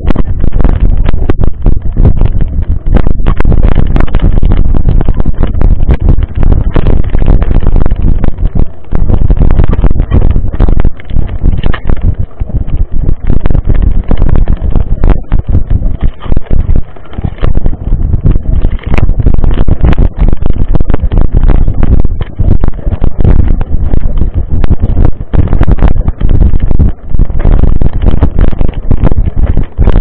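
Mountain bike riding over rough dirt singletrack, picked up by the bike-mounted action camera's microphone as a constant loud, overloaded rumble of wind buffeting and jolting, broken by many short knocks and rattles.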